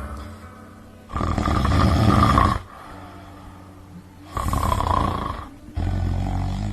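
A man snoring loudly: two long snores about three seconds apart, each lasting about a second and a half, then a lower rumble near the end.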